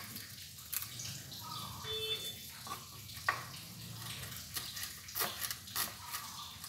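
Knife chopping celery leaves on a wooden cutting board: irregular sharp knocks of the blade against the board, the strongest about three seconds in, over a low steady hum.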